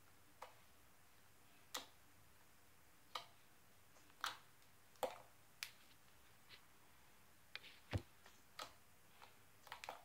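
White slime being squeezed and pressed by fingers, giving a dozen or so sharp clicks and pops at irregular intervals over near silence.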